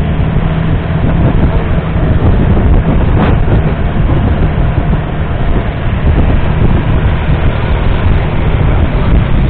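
Longtail boat's big diesel engine running steadily at speed, a loud constant drone, mixed with wind on the microphone and water rushing along the hull.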